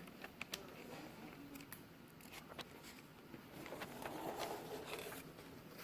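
Quiet indoor room tone with a few scattered light clicks in the first half and a faint murmur in the second half.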